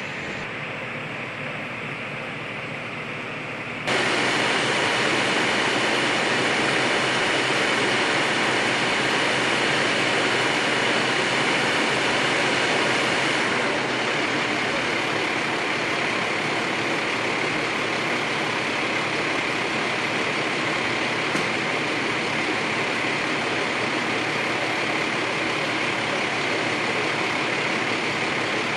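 Utility bucket truck's engine running steadily while its boom is raised to the power lines. It gets suddenly louder about four seconds in.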